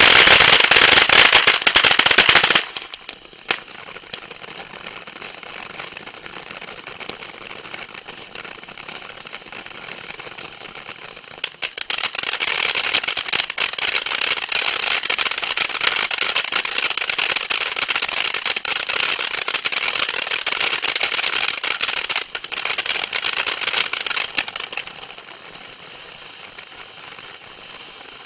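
Bright Star Pot Mums consumer firework going off in dense, rapid crackling. The crackle is loud at first and drops off after about two and a half seconds. It surges loud again at about twelve seconds and holds until about twenty-five seconds, then fades to a softer crackle.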